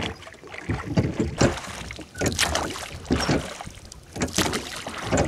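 Rowboat oars dipping and pulling through calm water, in a steady rhythm of noisy surges about a second apart.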